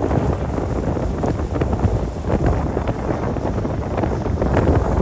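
Wind buffeting the microphone in uneven gusts aboard a car ferry under way in rough seas.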